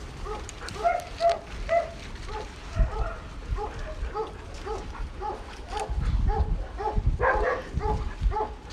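Several dogs barking, one settling into a steady run of barks about three a second, with a low rumble underneath near the end.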